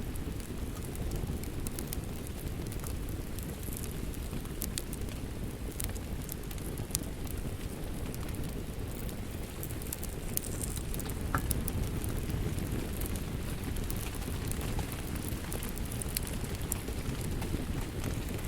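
Steady rain with a low, dense rumble, over a wood fire crackling, with sharp pops and snaps scattered irregularly throughout.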